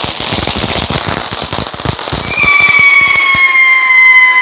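Ground fountain firework spraying sparks: a crackling hiss, joined about two seconds in by a loud whistle that falls slightly in pitch. It stops suddenly right at the end.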